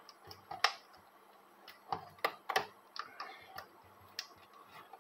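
A small screwdriver prising at the plastic fuse-holder cover of a TS Shara voltage stabilizer: irregular sharp clicks and ticks of metal on plastic, the sharpest a little after half a second in, with a cluster around two seconds in.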